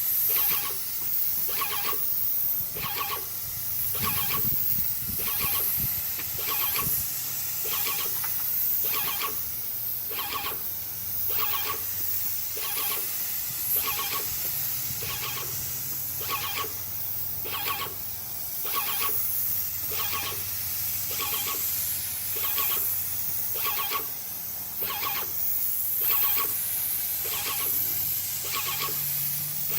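Titan 440 electric airless paint sprayer at work: a steady hiss of paint atomising from the spray tip, with the piston pump cycling in an even, squeaky pulse a little more than once a second.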